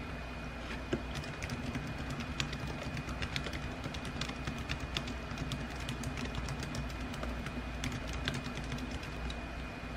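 Fingers typing on a laptop keyboard: quick, irregular key clicks, several a second, over a steady low hum.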